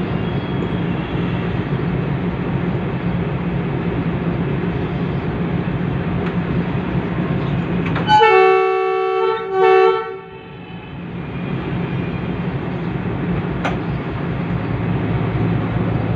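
Diesel locomotive engine running steadily, heard from the cab; about halfway through, the locomotive's horn sounds twice, a long blast then a short one, warning road traffic at an open level crossing.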